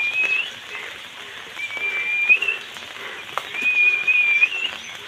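A high whistled note, held about a second and ending in a short upward flick, repeated three times about two seconds apart.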